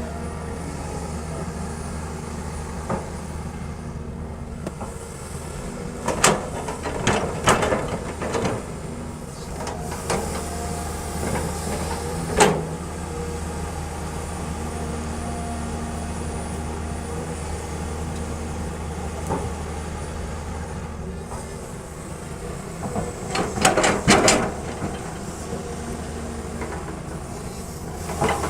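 Kobelco SK140 excavator's diesel engine running steadily under load, with bursts of clattering and knocks a few times as the machine loads a dump truck.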